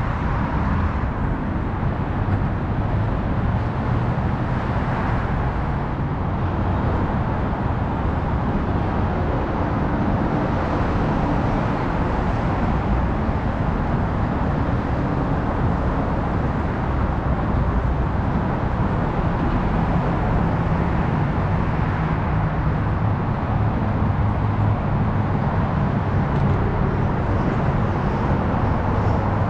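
Steady road traffic rumble from the elevated Coronado Bridge approach ramps overhead.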